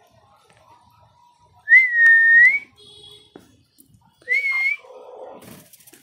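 Two clear whistled notes, each a steady pitch that rises slightly at the end: the first about a second long, the second shorter, with a short buzzy note between them.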